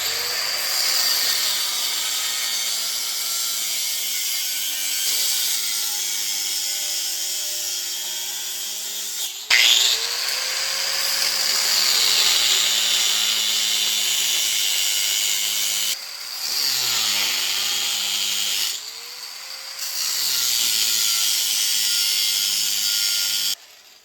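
Angle grinder cutting through the quad's metal frame. Its motor whine dips in pitch each time it bites and rises again as the load eases. It pauses briefly a few times and stops near the end.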